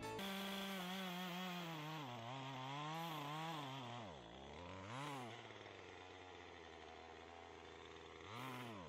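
Small two-stroke petrol chainsaw engine running unevenly, its speed surging and sagging twice, then settling to a low idle and revving briefly near the end. The owner puts the faltering down to running out of fuel.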